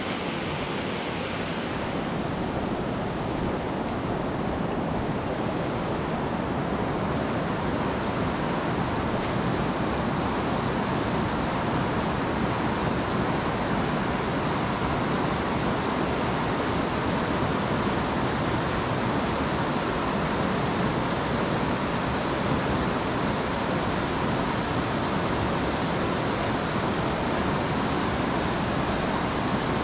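Fast, high river current rushing over a rocky bed: a steady, loud hiss of moving water close to the microphone.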